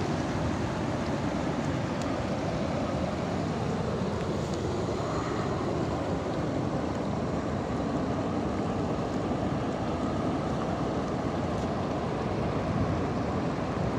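Steady rush of a flash flood: shallow, muddy floodwater flowing fast across a sandy wadi bed, carrying foam and brush.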